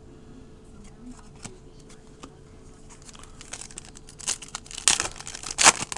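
Trading-card pack wrapper being torn and crinkled open by hand: a few scattered crackles at first, then a busy run of louder crinkling and rustling in the last couple of seconds.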